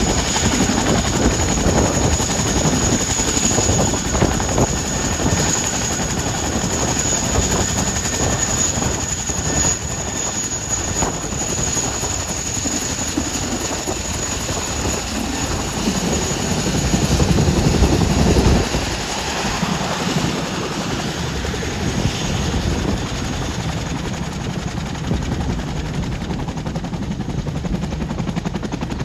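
Boeing CH-47 Chinook's twin T55 turboshaft engines and tandem rotors running loud as the helicopter taxis, a steady rotor beat under a high turbine whine that fades somewhat in the second half.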